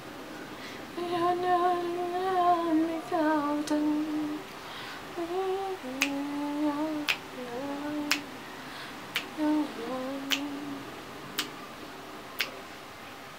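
A woman humming a slow tune with long held notes. In the second half there is a sharp click about once a second.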